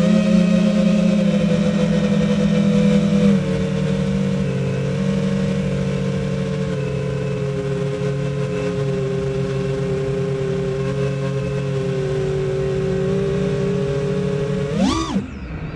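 Brushless motors and tri-blade 51499 propellers of a 4S FPV quadcopter, heard from the onboard camera: a steady buzzing whine at cruise throttle whose pitch drops a step about three and a half seconds in and then sinks a little further. Near the end a quick throttle punch sends the pitch swooping up and back down.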